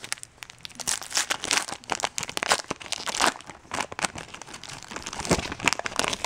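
A foil trading-card pack being crinkled and torn open by hand: a dense, irregular run of crackles.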